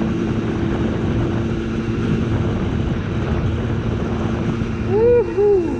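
Simson moped's two-stroke engine running at a steady speed, with wind rush on the microphone. Near the end a voice calls out twice in short rising-and-falling whoops.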